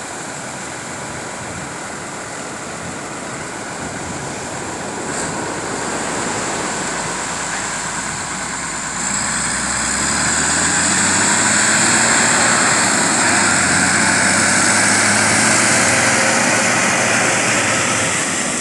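Surf and wind noise on the beach, then from about nine seconds in a tractor's diesel engine revs up and runs loud under load, its pitch rising as it pushes a heavy ski boat on its trailer into the surf.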